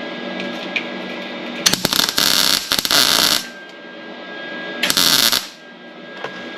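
MIG welder filling a cleco hole in the sheet steel of a truck's cab corner: two short crackling bursts, the first about a second and a half long, the second shorter, each starting and stopping abruptly.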